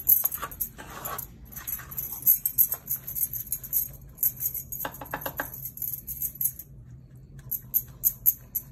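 Wooden spatula stirring thick, nearly finished green apple pickle in a heavy pot, scraping and scuffing in repeated irregular strokes with a light metallic jingle, pausing briefly about seven seconds in. A steady low hum runs underneath.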